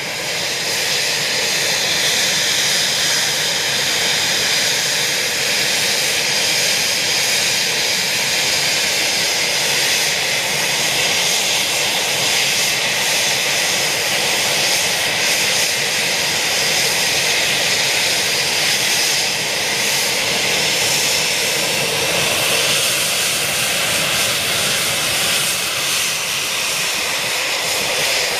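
Eurofighter Typhoon's twin EJ200 turbofan engines running at ground idle: a steady, loud jet rush with a high whine on top.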